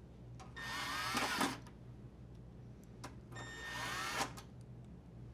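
Drill driver running screws into a dryer door panel in two runs of about a second each, its motor pitch rising and falling.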